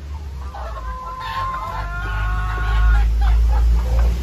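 Rooster crowing: one long drawn-out call starting about a second in, followed by a few short clucks, over a steady low rumble.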